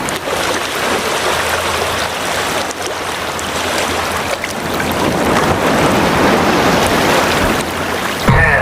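A loud, steady rushing noise of wind and water.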